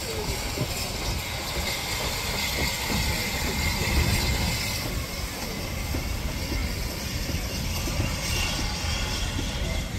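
Lancashire & Yorkshire Railway A Class 0-6-0 steam locomotive No. 52322 arriving slowly past with its coaches, a steady rumble of wheels on the rails.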